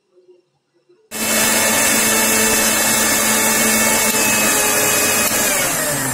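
Indian mixer grinder (mixie) running at full speed, blending chopped carrots with milk and sugar in its steel jar. It starts abruptly about a second in and runs steadily and loudly, its pitch sinking slightly near the end.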